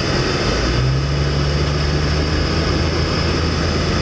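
SUV engine and tyre noise heard from inside the cabin while driving. The engine note strengthens about a second in as it pulls harder, over a steady hiss of road noise.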